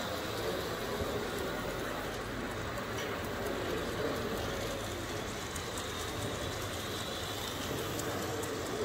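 A small-scale model diesel locomotive running along the track with a train of empty cane bins, under steady background noise.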